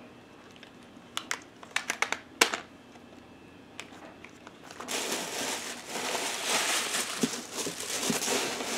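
A few sharp clicks and taps of items being handled, then from about five seconds in a steady crinkling and rustling of packaging being handled as a beauty box is unpacked.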